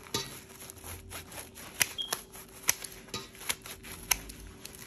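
Kitchen scissors snipping through sheets of fresh tofu skin: a run of short, sharp clicks as the blades close, irregularly spaced about every half second to second.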